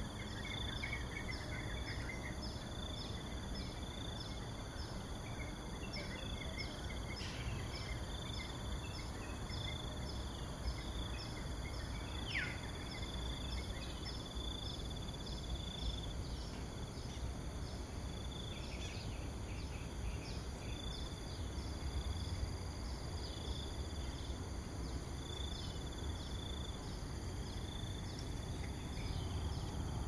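Insects calling in a steady pulsing trill, with a faster run of repeated high ticks above it, and occasional bird calls, among them one quick falling whistle about twelve seconds in. A low, even rumble runs underneath.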